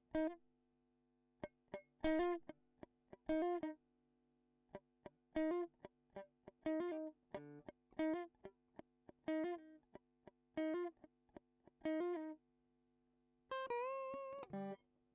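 Background music: plucked guitar notes about once a second over faint held tones, with a longer wavering note near the end.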